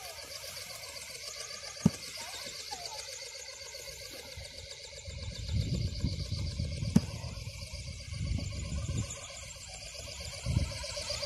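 Wind gusting on the microphone, mostly in the second half, over a faint steady high whine from the RC ornithopter's geared 1811 brushless motor as its wings flap. Two sharp clicks, one about two seconds in and one about seven seconds in.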